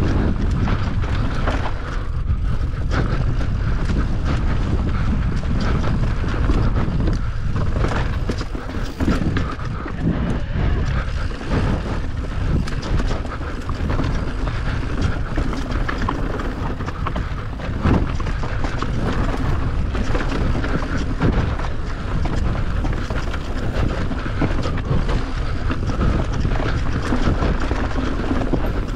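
Wind rushing over the microphone of a bike-mounted camera riding a rough enduro trail, with frequent knocks and rattles from the bike over bumps.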